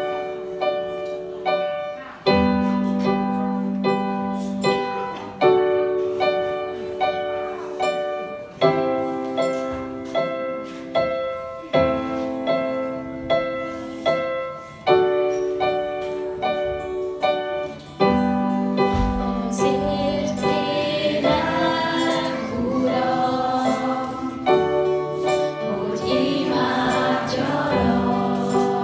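Live worship music: an electronic keyboard playing sustained piano chords that change every few seconds, with light hand percussion on cajóns. Singing voices come in about two-thirds of the way through.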